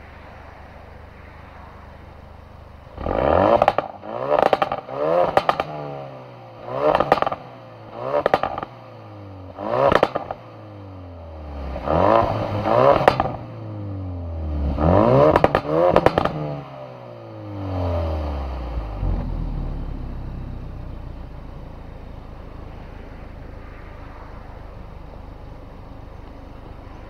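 2016 Ford Focus RS 2.3-litre turbocharged four-cylinder heard at the stock exhaust tips in sport mode: idling, then blipped to about ten quick revs, each falling back with pops and crackles from the exhaust. A last, longer rev near the middle drops back to a steady idle.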